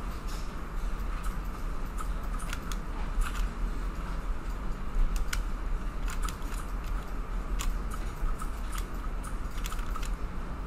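Computer keyboard keys and mouse buttons clicking at irregular intervals during digital sculpting, over a steady low electrical hum and hiss.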